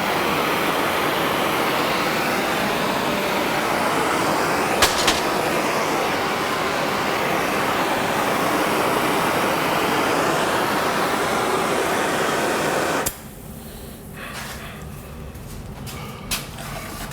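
Gas torch burning with a steady hiss, heating a bent steel part so it can be straightened. It shuts off abruptly near the end, with a single sharp click about a third of the way through.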